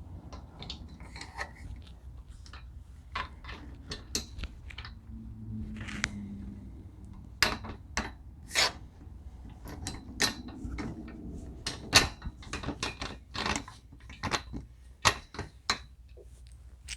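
Irregular metal clicks, clinks and knocks of bolts and steel parts being handled and refitted while assembling a table saw stand.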